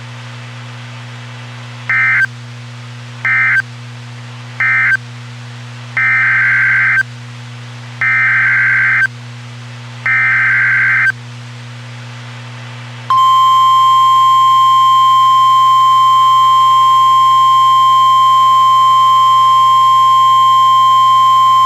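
Emergency Alert System SAME data bursts: three short warbling bursts closing the previous warning (end-of-message), then three longer one-second bursts heading the next warning. About 13 s in, a single steady alert tone near 1 kHz begins, the NOAA Weather Radio 1050 Hz warning alarm, over a constant low hum.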